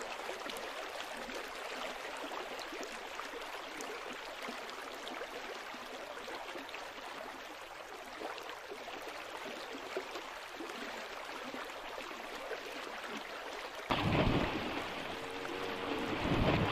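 Steady rush of running water. About 14 s in it grows louder, with a low rumble added.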